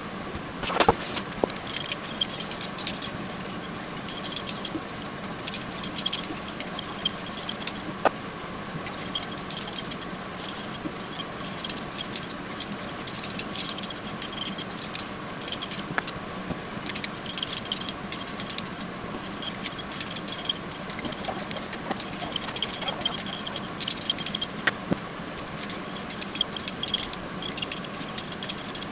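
Potatoes being peeled with a metal Y-shaped peeler: quick repeated scraping strokes in runs, with short pauses between runs.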